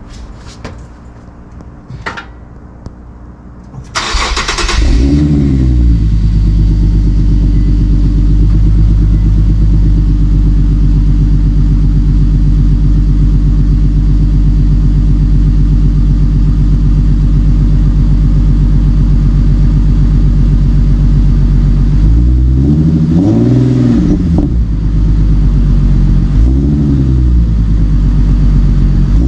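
2015 Infiniti Q50 fitted with a REV9 axle-back exhaust: after a few faint clicks, the engine starts about four seconds in and settles into a steady idle through the new exhaust. It is revved up and back down twice near the end.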